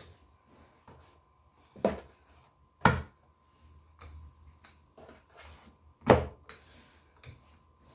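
Wooden rolling pin working pizza dough on a worktop: soft rolling and rubbing, broken by three sharp knocks on the worktop, two about a second apart near the two-second mark and a louder one about six seconds in as the dough is lifted and turned.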